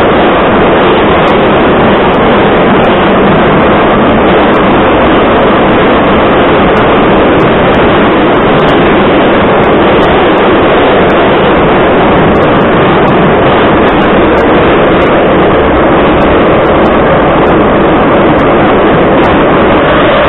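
Loud, steady running noise heard from inside a Moscow metro 81-714.5 car moving at speed, the roar of wheels on rails and the running gear.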